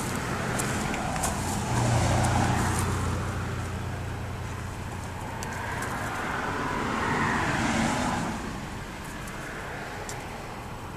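Road traffic: cars passing, the noise swelling and fading twice, peaking about two seconds in and again around eight seconds in, over a low steady hum, with a few faint clicks.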